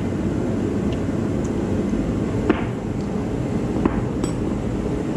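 Metal combination wrenches clinking against each other as they are picked through on a wooden workbench: a few short sharp clinks, two plain ones in the middle, over a steady background hum.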